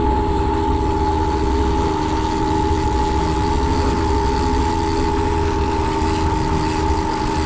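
Boat's outboard motor running steadily at low speed, a steady whine over a low rumble.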